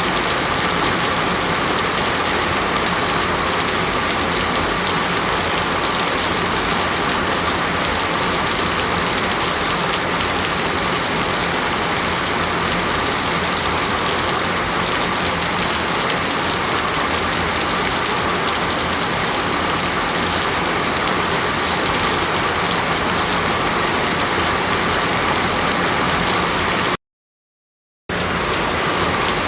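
Steady rain, an even hiss with no single drops standing out. It cuts out completely for about a second near the end, then resumes at the same level.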